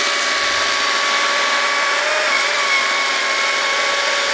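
Battery-powered STIHL MSA 220 chainsaw running at full speed and cutting through a log: a steady electric-motor whine over the rasp of the chain chewing wood, with a slight dip in pitch about two seconds in.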